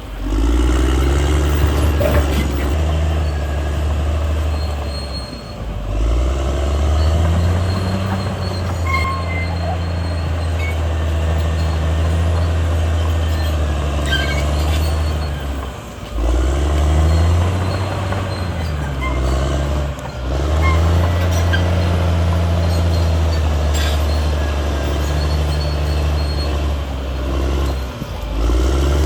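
Caterpillar D6R XL bulldozer's diesel engine working hard, its pitch dipping and climbing again several times as the load comes on and off. Short high metallic squeaks are heard now and then.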